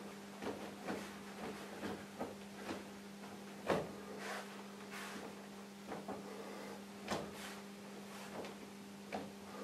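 Short, irregular rustles and soft snaps, about one or two a second, from a martial artist's arm strikes and footwork as he performs a Wing Tsun form; the loudest comes a little before four seconds in. Under them runs a steady low electrical hum.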